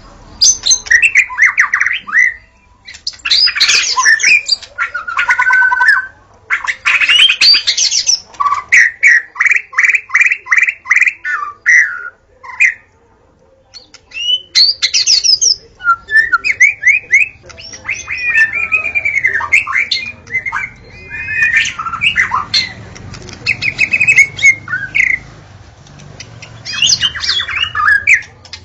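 White-rumped shama (murai batu) singing loud, varied phrases of whistles and chattering notes, with a run of fast repeated notes about a third of the way in. The song breaks off briefly twice, once near the start and once about halfway through.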